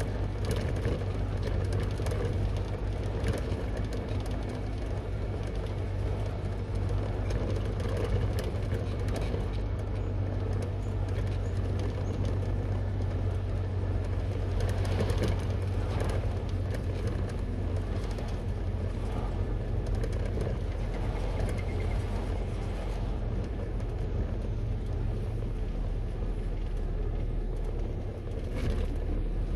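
Car engine running with a steady low hum, heard from inside the cabin.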